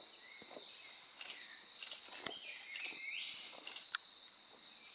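Steady high-pitched insect chorus, with two sharp clicks and a few short rising whistle-like calls.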